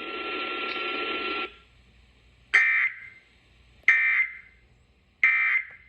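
Emergency Alert System end-of-message data bursts: three short, shrill digital squawks about 1.3 seconds apart, closing the broadcast warning. They follow the broadcast audio, which cuts off about a second and a half in.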